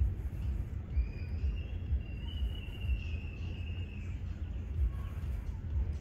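Uneven low rumble of wind on the microphone, with a faint high thin whistle lasting about three seconds from about a second in.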